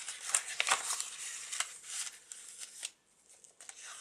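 Paper rustling and crinkling as the pages of a handmade paper journal and a note card are handled and turned: a run of short swishes and taps, with a brief pause about three seconds in.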